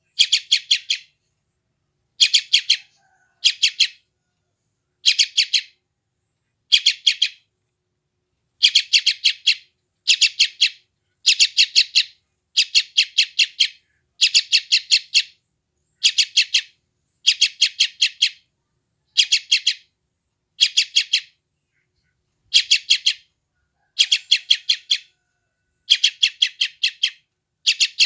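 Yellow-vented bulbul chick giving begging calls: short bursts of rapid, harsh high chirps, each about half a second long, repeated again and again with brief pauses between them.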